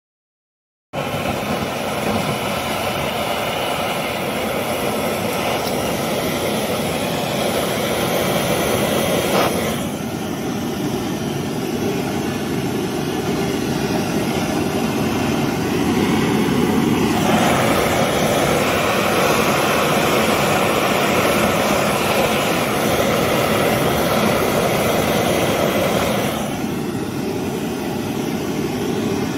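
Gas burner running steadily under a pot of gun-bluing solution. The sound starts suddenly about a second in and changes level abruptly about 10, 17 and 26 seconds in.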